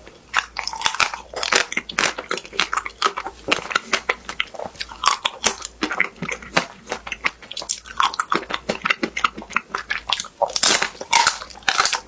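Close-miked biting and chewing of a crisp-coated ice cream bar: a dense run of sharp crackles as the brittle shell breaks and is chewed.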